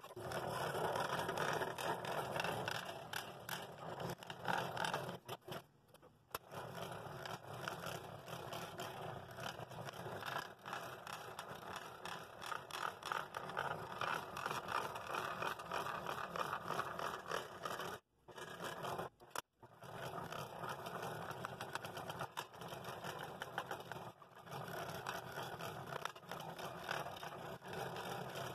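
Scroll saw blade reciprocating through a poplar lighthouse blank, cutting a window opening in a compound cut: a fast, steady rasp, broken by a few brief pauses.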